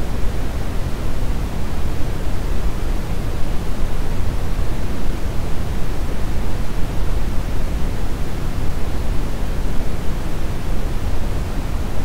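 Brown noise: a steady, even rushing hiss, heaviest in the low end and dull at the top.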